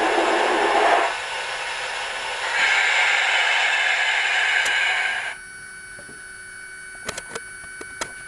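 Steam blowdown hiss from an HO-scale MTH 4-6-4 Hudson model locomotive's sound system, played through its small speaker at the end of its shutdown sequence. The hiss drops about a second in, comes back louder and higher at about two and a half seconds, then cuts off suddenly just past five seconds. A faint steady tone and a few sharp clicks follow near the end.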